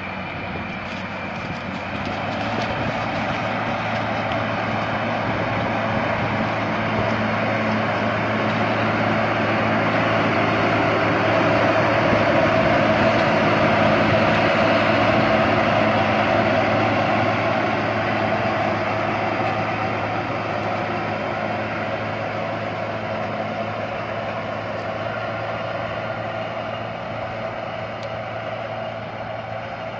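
YTO 1604 tractor's diesel engine running steadily under load as it pulls a tillage implement through stubble. It grows louder as it passes close by about halfway through, then fades as it moves away.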